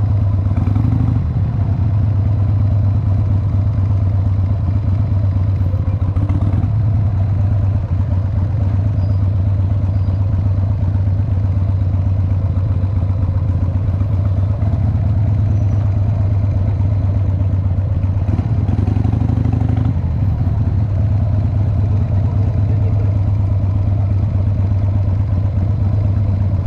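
Cruiser motorcycle engine running at low speed as the bike creeps along, a steady low rumble of firing pulses, briefly fuller about two-thirds of the way through.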